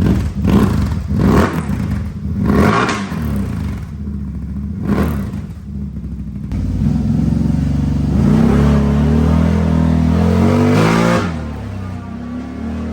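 CFMOTO ZFORCE 950 Sport's V-twin engine breathing through an RJWC slip-on exhaust, revved in four quick throttle blips and then held at higher revs for about four seconds before dropping back to idle near the end.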